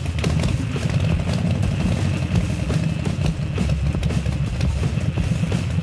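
Motor-vehicle engine sound running steadily at idle with a fast low chugging flutter, dubbed over a non-motorised die-cast toy truck.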